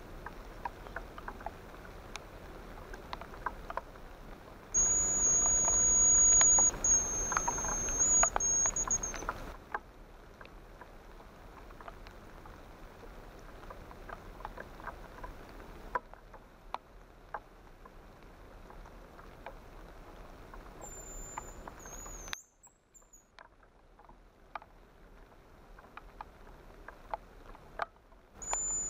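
Light drizzle pattering, with scattered drips clicking. High, thin hazel grouse whistles come through it: one long wavering whistle from about five to nine seconds in, a short falling one about three-quarters of the way through, and another starting at the very end.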